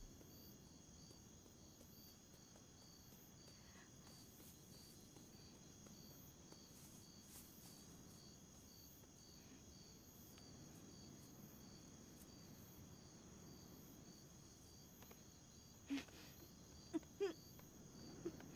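Near silence: faint forest ambience with an insect chirping steadily, about two chirps a second, and a few brief louder sounds near the end.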